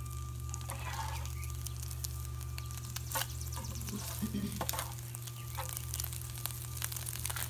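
Irregular crackling and sizzling from a pan heating over a wood fire in a homemade tin-can stove, over a steady low hum.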